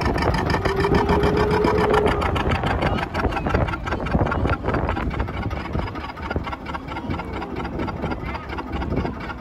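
Motorboat engine running with a fast, steady pulsing beat at low speed, its level dropping a little about halfway through.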